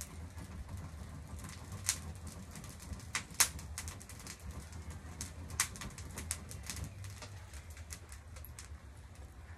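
Charcoal fire in a homemade stove crackling, with scattered sharp, irregular pops over a low steady rumble.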